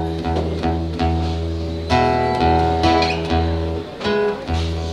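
Acoustic guitar strummed, its chords ringing, with new chords struck about two seconds in and again near the end.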